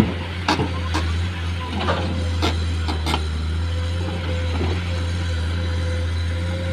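Komatsu PC210 hydraulic excavator's diesel engine running steadily under working load, with a steady whine over it. A handful of sharp knocks of rock against steel come in the first three seconds as the bucket works the stone.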